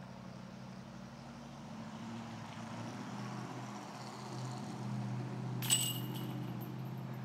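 A motor vehicle's engine running with a low, steady hum that slowly grows louder. About two-thirds of the way through, a short, sharp high ring cuts in briefly.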